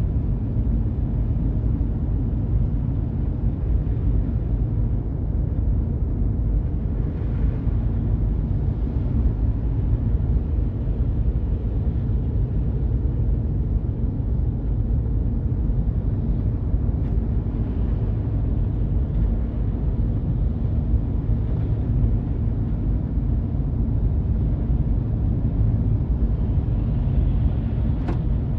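Steady low rumble of a car driving, with a faint steady hum underneath and a brief click near the end.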